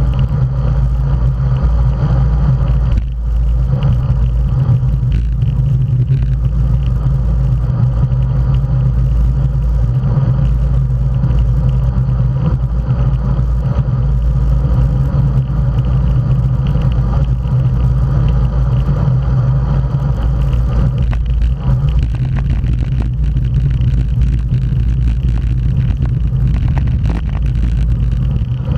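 Steady, loud wind rumble on the microphone of an action camera mounted on a road bike moving at race speed, mixed with road noise from the tyres.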